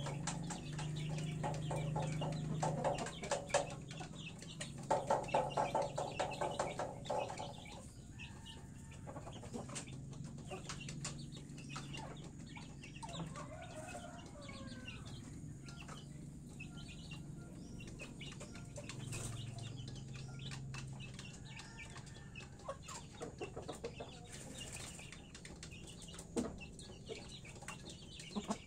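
Chickens clucking: a busy run of repeated clucks for about the first seven seconds, then quieter, with only scattered clucks and soft clicks.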